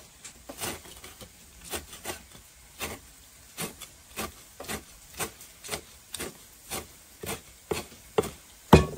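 Cleaver chopping pickled vegetables on a thick round wooden chopping block: sharp knocks about two a second, the loudest one near the end.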